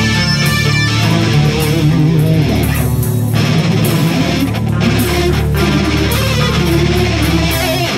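Heavy metal recording: a distorted electric guitar plays a lead solo with wavering vibrato notes over a dense backing of bass and drums.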